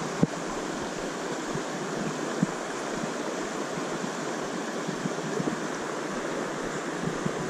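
Steady rushing of a shallow rocky mountain stream, with two brief knocks, one just after the start and one about two and a half seconds in.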